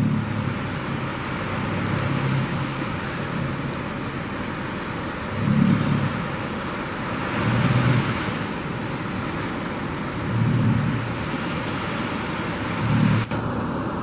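Surf washing steadily, with a boat's outboard motors pushing out through the breakers and swelling up in four surges of revs.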